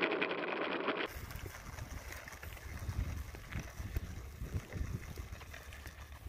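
Wind buffeting the microphone, an uneven low rumble with a few faint ticks. It follows a steady whirring from the model A-10's onboard camera as the model taxis, which cuts off about a second in.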